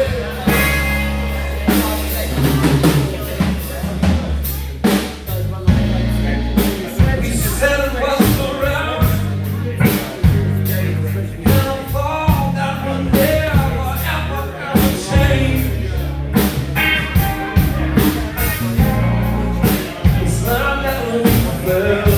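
Live rock band playing an instrumental passage, the drum kit's kick and snare hits driving a steady beat over bass and guitar.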